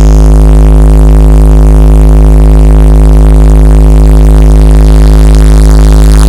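One long, held bass synthesizer note with a heavy sub-bass, played very loud through a large DJ sound system for a sound check, unchanging in pitch.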